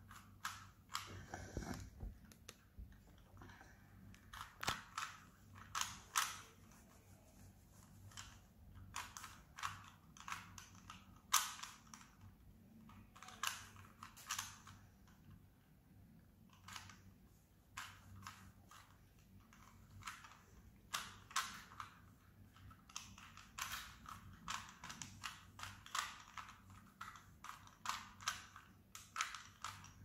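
Plastic 3x3 Rubik's cube being turned by hand: irregular runs of quick clicking and clacking as the layers rotate, with short pauses between runs.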